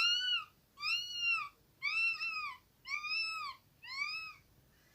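A young child imitating a kitten's meow: about five short, high-pitched mews, each rising then falling, at roughly one a second.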